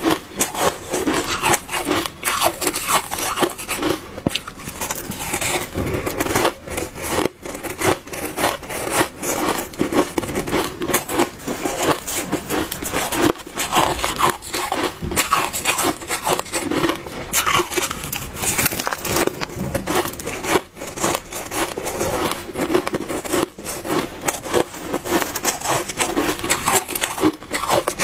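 Freezer frost being chewed close to the microphone: a dense, unbroken run of irregular crisp crunches.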